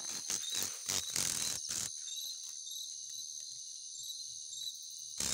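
Insects trilling steadily in high tones, with a few rustles and knocks from the phone being handled against clothing in the first two seconds.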